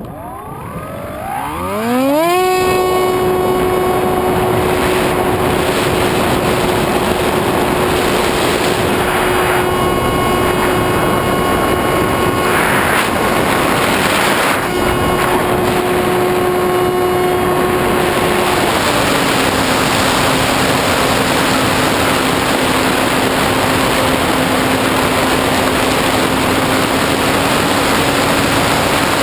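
Electric motor and propeller of a Skywalker 1900 FPV plane spinning up over about two seconds as the plane launches, then running at a steady high pitch with wind rushing over the onboard camera. About two-thirds of the way through the throttle is eased back and the tone drops to a lower steady pitch.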